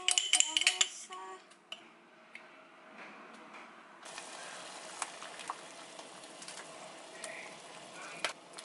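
A metal spoon clinks sharply several times against a ceramic bowl, then stirs a sauce with a few light clicks. About four seconds in, this gives way to the steady bubbling of a saucepan of water at a rolling boil, with meat being parboiled in it.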